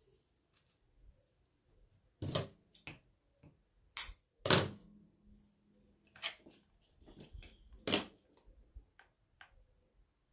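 A string of sharp clicks and knocks from craft materials being handled and set down on a tabletop. The loudest two come about four and four and a half seconds in.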